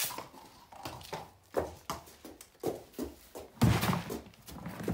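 A horse's hooves stepping on a concrete floor, a string of uneven knocks, with a louder, deeper thud about three and a half seconds in.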